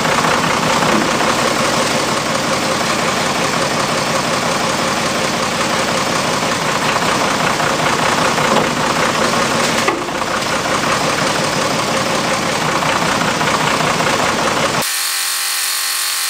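Loader backhoe tractor's engine running steadily at idle; about fifteen seconds in the engine sound breaks off abruptly.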